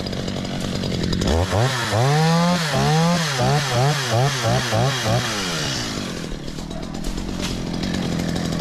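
STIHL chainsaw cutting through a jackfruit tree branch. About a second in, the engine pitch starts rising and falling over and over for some four seconds, then it runs steadier near the end.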